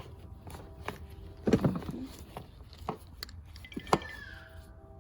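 A few handling knocks and clicks from a car seat and toy being fitted, the loudest cluster about a second and a half in, then a brief falling tone near the end.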